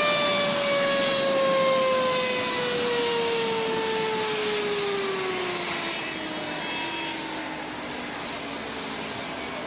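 A crashed helicopter's turbine engine winding down after the crash: a whining tone that falls slowly and steadily in pitch, with a high thin whine also falling above it and a rushing hiss underneath, slowly getting quieter.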